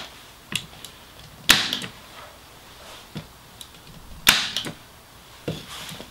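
Parkside PET25 electric nailer/stapler firing brad nails into a wooden board: two loud, sharp shots about one and a half and four seconds in, with lighter clicks between them. It is driving the nails cleanly again after its staple jam was cleared.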